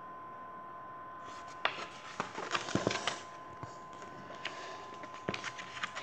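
Paper rustling and light clicks from a paperback picture book being handled and its page turned, in two bursts: about a second in and again in the second half. A steady faint high tone sits underneath.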